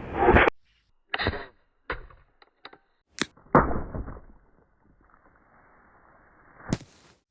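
A series of short knocks and clicks, then a sharp crack followed by a brief hissing burst that fades over about a second, and another sharp crack near the end.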